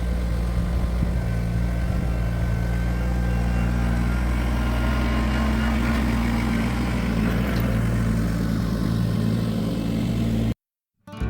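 Kubota BX23S compact tractor's small three-cylinder diesel engine running steadily at a constant speed, then cutting off suddenly near the end.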